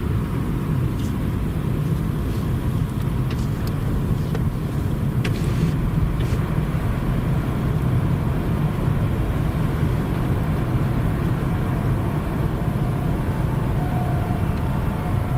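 Steady low rumble of vehicle engines and road traffic. Near the end a faint two-tone ambulance siren starts to come in.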